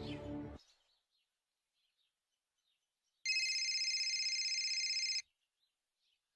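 A phone ringtone rings once, a high electronic trilling ring lasting about two seconds that starts about three seconds in, after a music cue fades out at the very start.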